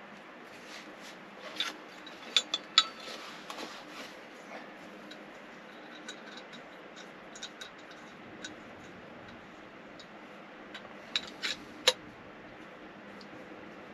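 Light clicks and taps of hard plastic and metal parts being handled and fitted together: the white plastic ground stakes and metal tube legs of a small wind turbine's stand. The clicks come in a cluster about two seconds in and again near the end, with a sharper click just before it.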